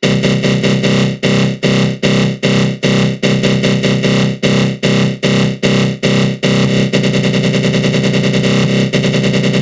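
Synthesized 'attack growl' sound effect: a dense synth tone from the GMS synth in FL Studio Mobile, run through a flanger. It is chopped into repeating pulses about two and a half times a second, which switch to a faster stutter of about four a second some seven seconds in.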